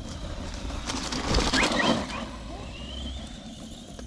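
HSP Wolverine Pro radio-controlled car driving off across grass: a loud rough burst of tyres churning grass and leaf litter about a second in, followed by a faint rising whine as it pulls away.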